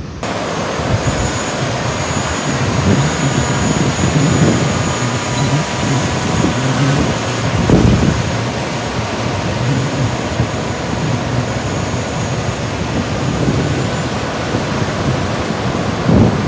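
Wind buffeting the microphone over surf on the beach, a steady noisy rumble, with a faint steady high whine through most of it.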